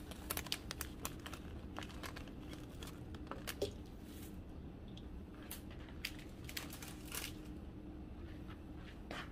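Paper bag of crushed red chile flakes crinkling and rustling while it is handled and scooped from with a plastic measuring spoon, with scattered light clicks and taps.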